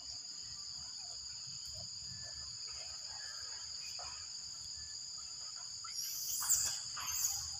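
Steady high-pitched insect drone in the forest, holding two constant high tones. A few short, sharp chirps come in near the end.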